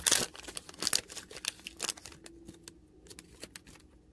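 Crinkly printed plastic wrapper of a small eraser packet being torn open and unwrapped by hand: a cluster of loud crackles in the first second, then lighter, scattered crinkles that fade out.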